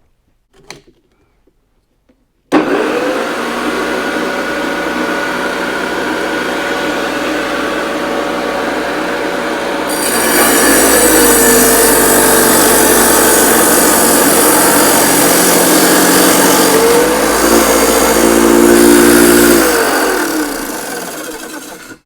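Electric wet saw with a diamond blade switched on, its motor whine rising and then running steady. From about ten seconds the blade cuts through hard masonry (tile or brick), which makes it louder and grittier, and the motor pitch sags under load. Near the end the motor is switched off and winds down.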